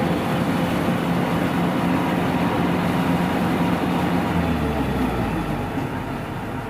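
Kubota DC-93 rice combine harvester's diesel engine and threshing machinery running steadily, growing quieter after about five seconds.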